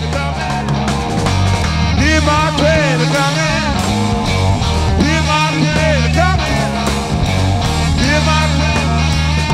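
Rock music with a steady bass line and gliding melodic lines, playing loudly.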